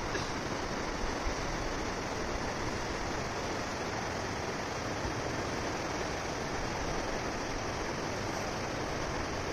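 Steady rushing of a flooded, muddy river running fast over rocks and rapids.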